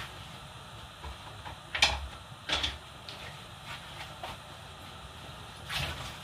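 Lidded pots cooking on a stove: a steady hiss, broken by three short noisy bursts, the loudest about two seconds in, another about half a second later, and one near the end.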